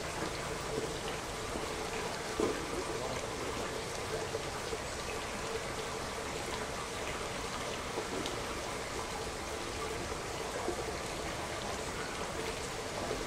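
Steady hiss of running water, with a faint steady hum underneath and a few soft clicks.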